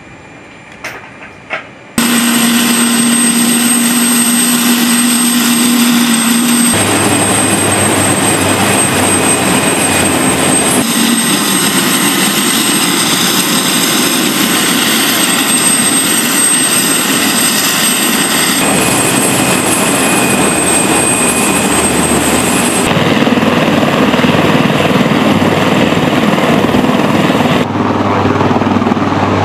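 AH-1Z Viper attack helicopter's twin turbine engines and spinning rotors running loud and steady at close range, in several spliced takes whose sound changes abruptly every few seconds. The first two seconds are quieter, with a few short knocks, before the helicopter noise cuts in.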